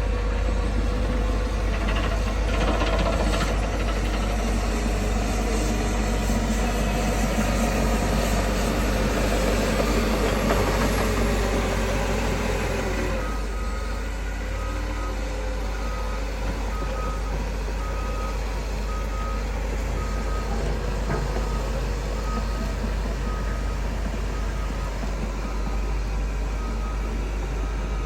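Bulldozer's diesel engine running steadily under load. About halfway through, a reversing alarm starts beeping about once a second.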